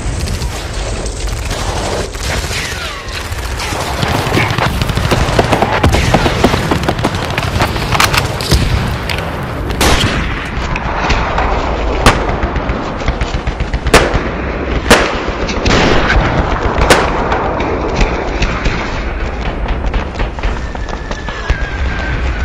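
Gunfire from firearms shooting blanks: a dense stretch of rapid overlapping shots, then separate sharp single shots every one to two seconds in the second half.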